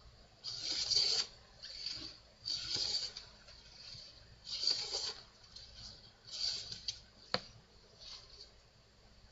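Hand plane taking shavings off a wooden workbench leg: about five scraping strokes, each about half a second to a second long, then a single sharp tap near the end.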